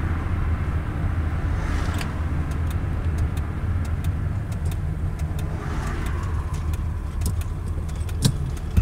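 The Wartburg 353's swapped-in 1.3 four-cylinder engine running steadily at low speed, heard from inside the cabin, with light irregular clicks and rattles and one sharper knock near the end.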